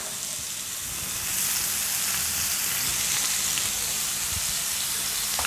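Raw chicken breast sizzling as it fries in hot oil in a non-stick frying pan, a steady hiss that grows a little louder about a second in. The sizzle is the sign that the oil is hot enough for searing.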